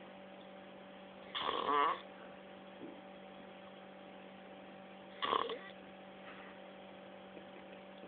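A person snoring loudly, two snores about four seconds apart, each lasting about half a second with a wavering, fluttering pitch. A steady low hum runs underneath.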